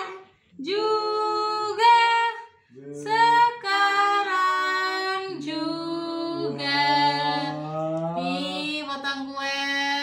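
Several voices, women and children among them, singing an Indonesian birthday song together without accompaniment, in phrases of long held notes.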